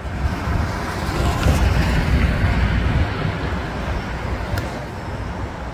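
City traffic and road noise heard while driving, a steady rumble that swells for a couple of seconds in the middle and then eases.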